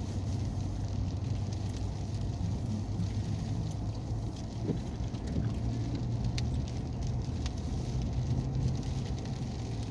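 Cabin noise of a four-wheel-drive vehicle driving on a snowy washboard gravel road: a steady low engine and road drone with scattered light ticks and rattles.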